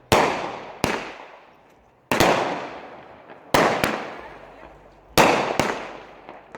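Multi-shot consumer firework cake firing: a sharp bang roughly every one and a half seconds, most followed a fraction of a second later by a second, smaller crack, each fading away in a long echoing tail.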